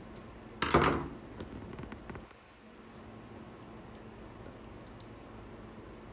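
A short loud knock or clatter about a second in, followed by a few smaller scrapes and taps of handling the plug and tools, then a faint steady hum of room tone.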